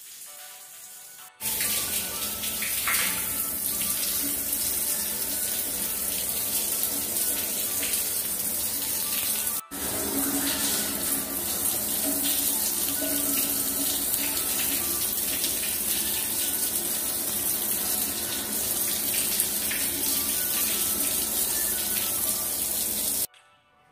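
Shower head spraying water onto a person washing, a steady rushing hiss. It starts about a second and a half in, drops out for an instant midway, and cuts off abruptly near the end.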